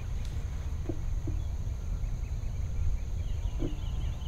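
Outdoor field ambience: a steady low rumble, a few soft short sounds, and faint songbird chirps near the end.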